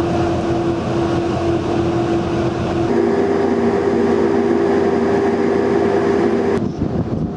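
Steady mechanical drone of a cargo ship's engines and machinery, with a constant low hum. The hum steps slightly higher about three seconds in, and the sound changes again near the end.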